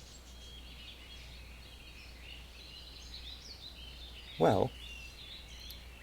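Birds chirping and singing in a steady stream of short, high notes, over a faint steady low hum.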